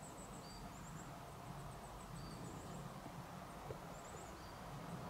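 Small songbird calling faintly: runs of thin, very high-pitched notes in quick succession, with a few lower single notes, over a faint steady low rumble.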